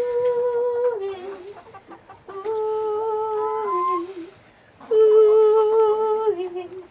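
A woman singing long, wordless held notes in three phrases, each stepping down in pitch at its end: the call that her chickens are trained to go into the coop to. Hens clucking in the background.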